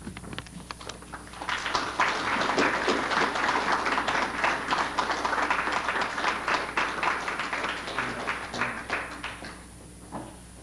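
Audience applauding: a few scattered claps at first, swelling to full applause about a second and a half in, then dying away near the end.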